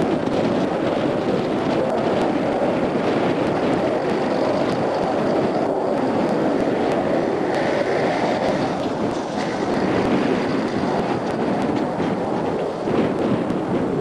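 Truck engine running steadily as a potato truck drives over a field, with wind noise on the microphone.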